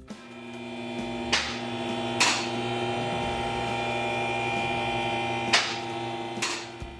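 A steady electrical hum that fades in and out, with four sharp knocks: two in the first half and two near the end.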